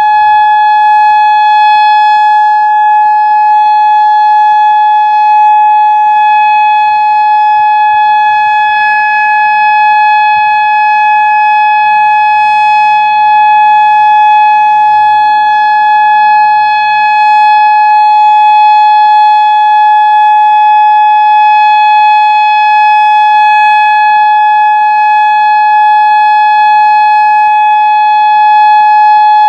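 Whelen 2016 outdoor warning siren sounding a loud, steady single tone during a siren test, held at one unchanging pitch with a string of overtones.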